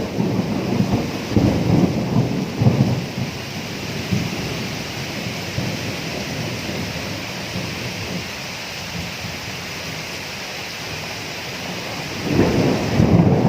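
Thunderstorm: steady rain with rolling thunder. A low rumble in the first few seconds dies away, and another builds about twelve seconds in.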